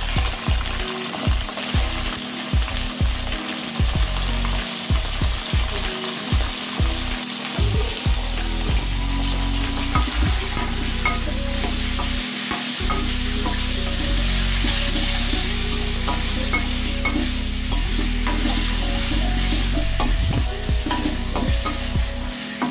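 Raw chicken pieces sizzling in hot oil in a steel kadai, with a steel ladle scraping and clinking against the pan as they are stirred.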